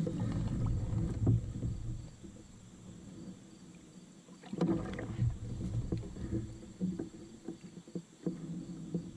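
Knocks, clunks and rumbling of a person shifting about in a fishing kayak and handling a plastic fish measuring board against the hull. They come in two bouts, one at the start and one about four and a half seconds in, with small clicks between and after.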